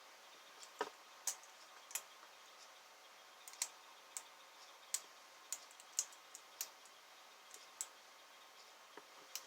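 Lock pick and tension wrench working the pins of a 5-pin Yale pin-tumbler lock: small, sharp clicks at irregular intervals over a faint hiss.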